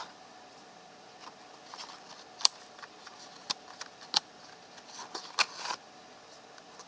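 Cardboard card box being opened and its contents handled: a scatter of sharp clicks and taps with brief rustling, the loudest snaps about two and a half and five and a half seconds in.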